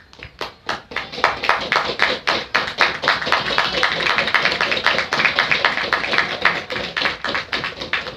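Many people in the crowd clapping together in a fast, steady rhythm. It starts with a few scattered claps and settles into an even beat of about four to five claps a second about a second in.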